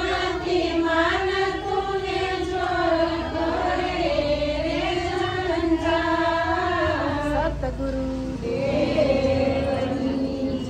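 A group of women singing together in unison, a slow melody held in long, wavering notes, with a short break in the line about three-quarters of the way through.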